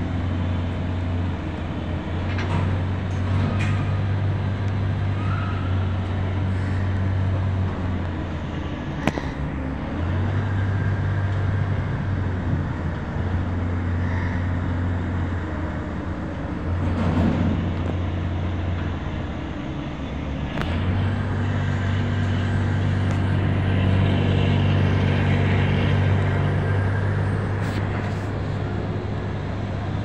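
Steady low drone of heavy machinery that drops out briefly a few times, with a sharp click about nine seconds in.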